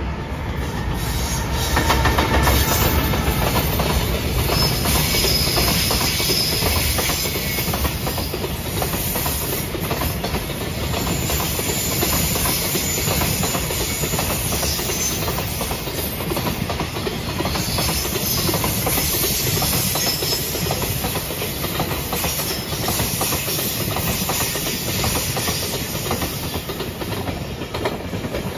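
Freight train hauled by a JR Freight EF210 electric locomotive passing close by, its container flatcar wheels clattering steadily over the rail joints. Loudest as the locomotive goes by about two seconds in, staying loud as the wagons roll past, and easing off near the end.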